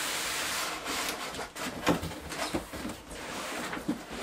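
Cardboard sliding and scraping as an inner box is drawn out of its outer carton: a steady rasping rub over the first second or so, then scattered knocks and rustles of the cardboard.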